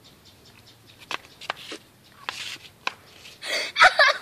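A woman laughing in short breathy bursts, building to a loud peal of laughter near the end.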